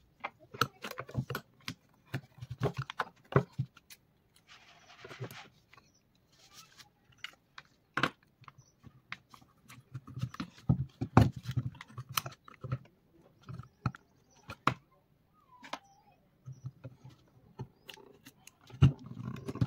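Irregular clicks, taps and knocks of tools and small parts being handled during repair work on an LED street light, with a brief scraping hiss about five seconds in.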